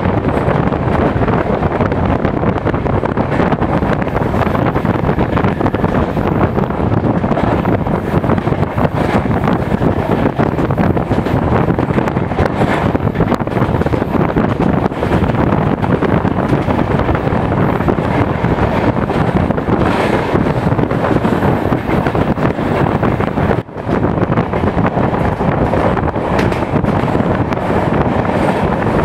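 Moving passenger train, a steady rumble of running noise with wind buffeting the microphone. It dips briefly once, late on.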